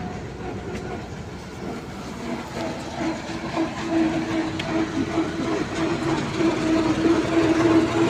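An engine-driven vehicle running with a steady hum, growing louder through the second half.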